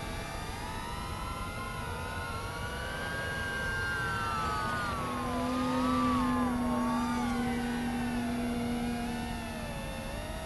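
5-inch FPV quadcopter's brushless motors and propellers whining in flight under the load of a 12000 mAh battery, several pitches gliding up and down as the throttle changes. A steady lower hum joins about halfway through and stops near the end.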